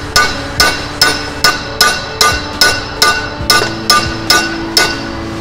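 Ball peen hammer striking the steel inner bearing race on a Corken pump shaft set on the back of a vise: about a dozen quick, evenly spaced blows with a metallic ring, stopping near the end. The blows are meant to flatten and crack the race so it can be slid off the shaft.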